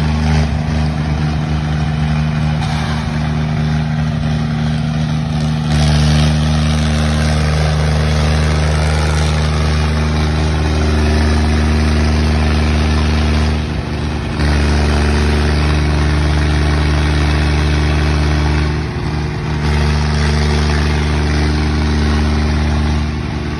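John Deere diesel tractor engines running at steady high revs under heavy load as two tractors pull against each other in a tug-of-war. The sound dips briefly about 14 and 19 seconds in.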